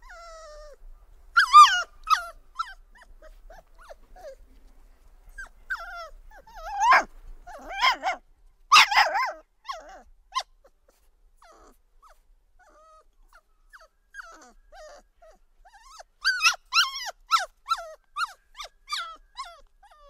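Dog vocalisations as a sound effect: a few short, pitch-bending calls spaced apart, then a quick run of about eight short calls near the end.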